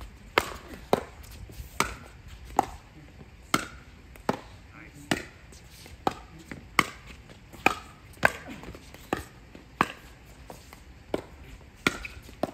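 Pickleball paddles hitting a plastic pickleball back and forth in a long rally: a string of sharp hollow pops, about one every three-quarters of a second, some louder and nearer than others.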